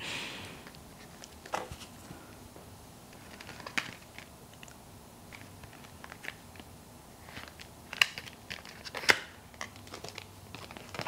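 Packaging being handled: rustling and crinkling, with a small cardboard box being opened. Scattered short, sharp clicks and taps, the loudest about eight and nine seconds in.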